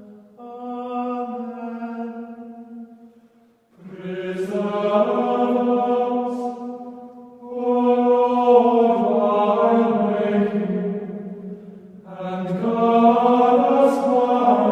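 Choir singing a chant in four phrases of a few seconds each, with brief pauses between them.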